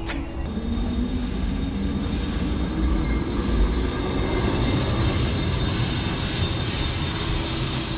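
Lisbon vintage electric tram running past close by on its street rails, with a steady rumble and a low motor whine that rises over the first few seconds, plus a thin steady high tone.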